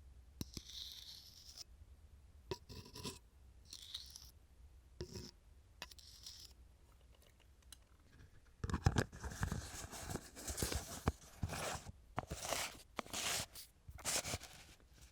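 A utensil scraping peanut butter out of a jar in several short strokes. It is followed by a louder, longer run of scraping and clicking handling, which fits the jar's lid being twisted back on.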